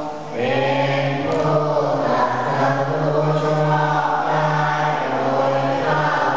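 Group of Buddhist novice monks chanting their devotions in unison, a steady, level recitation on held notes, with a brief break for breath just after it begins.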